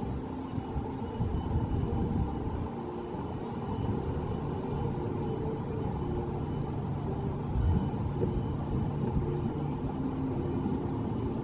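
Small guest-piloted ride boat moving slowly along a dock channel: a steady low rumble with a faint hum.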